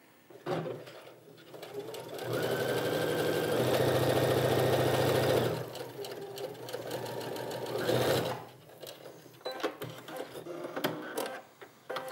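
Brother sewing machine sewing a straight stitch with a twin needle. It starts up, runs fast and steady for a few seconds, slows, then stops about eight seconds in. Light clicks follow as the fabric is handled.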